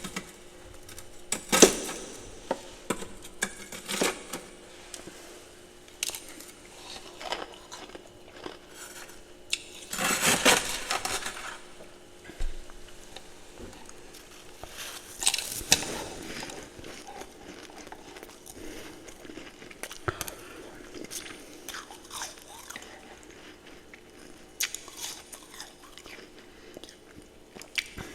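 A person biting and chewing ice close to the microphone: irregular crunches, with a longer stretch of dense crunching about ten seconds in and another about fifteen seconds in.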